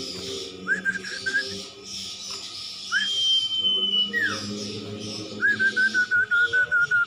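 A cumpon (sirtu) songbird singing clear whistled notes: a short run of notes, a long steady high whistle about three seconds in, then a fast run of repeated warbled notes from about five and a half seconds.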